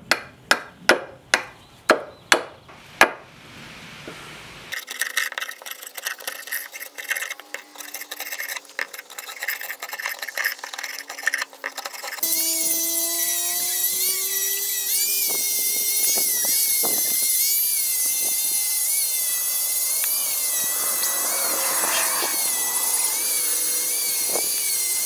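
A hatchet chopping into osage orange wood, about two strikes a second, then a draw knife scraping and shaving bark off the stick. About halfway through, a handheld electric power tool starts sanding the hard wood with a steady, wavering whine, the loudest part.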